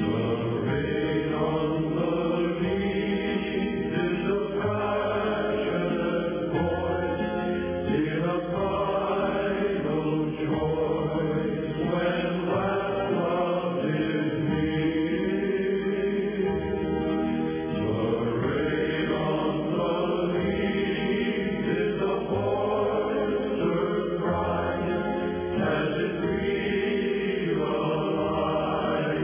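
Choral music: a group of voices chanting in sustained, slowly moving lines.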